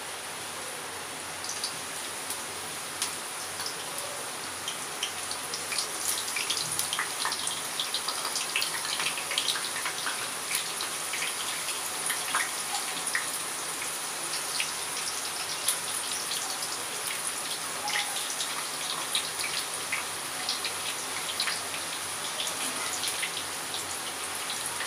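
Brinjal slices sizzling and crackling as they fry in hot oil in an aluminium wok, with many small pops that begin about two seconds in and come thicker after a few seconds.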